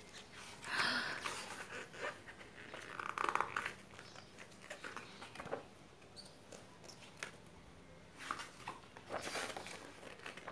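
Glossy pages of a thick photobook being turned and smoothed by hand: a few soft paper swishes and rustles, with quiet gaps between them.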